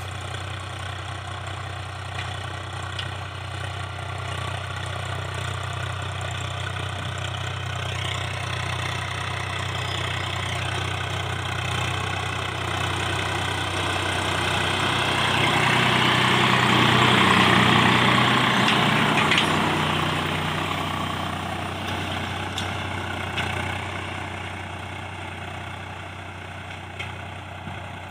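Tractor engine running steadily, growing louder around the middle and easing off toward the end.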